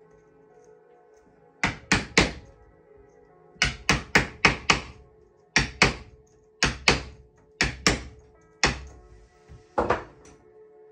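Mallet tapping on a wooden caning wedge, driving pressed cane webbing into the groove of a chair seat: sharp wooden knocks in quick runs of two to five, with short pauses between runs. Background music plays under the knocks.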